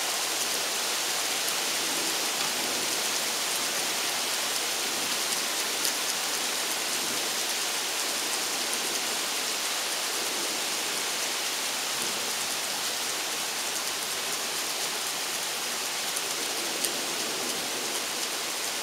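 Steady rain falling, an even hiss, with a couple of brief ticks, one about six seconds in and one near the end.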